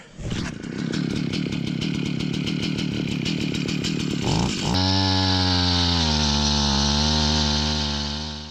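Two-stroke gas ice auger engine running, then opened up to full throttle about five seconds in as the auger bores into the ice. Its pitch sags briefly under the load and recovers.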